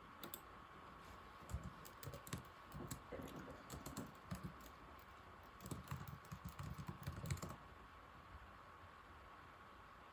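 Typing on an old laptop keyboard: quick, irregular runs of soft key clicks that stop about three quarters of the way through.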